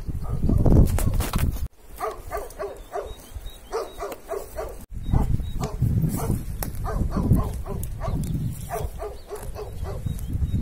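A dog barking repeatedly, short barks about three a second, over a loud low rumble.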